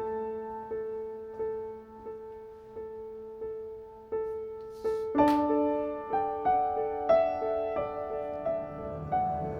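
Background piano music: gentle repeated notes struck about every two-thirds of a second, with a fuller chord coming in about five seconds in.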